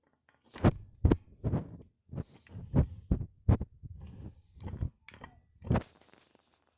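An irregular series of about nine dull knocks and thumps, roughly one every half second to second, with brief quiet between them.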